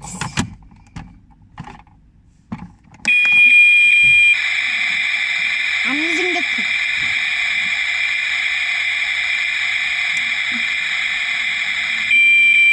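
Electronic sound effect from a toy kitchen appliance's small speaker. About three seconds in, a steady high tone sounds and then gives way to a loud, even hissing hum that lasts about eight seconds. The tone returns near the end and cuts off sharply.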